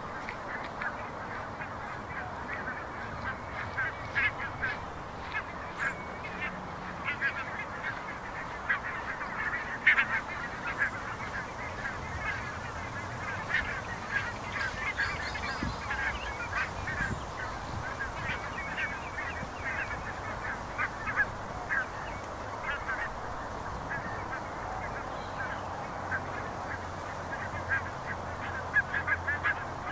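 A large flock of geese flying over, many birds honking at once in a dense stream of short, overlapping calls.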